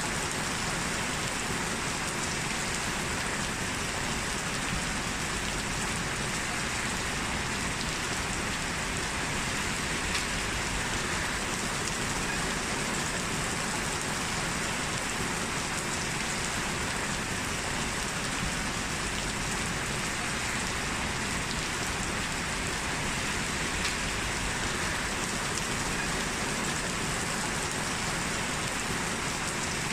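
Steady rain falling, an even hiss of drops on a surface that holds the same level throughout.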